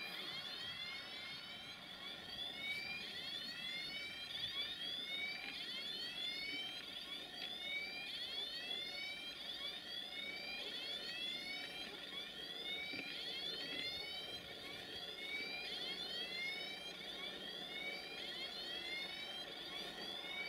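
Electronic warning alarm repeating a short rising-and-falling chirp, a little faster than once a second, over the low rumble of an approaching electric train.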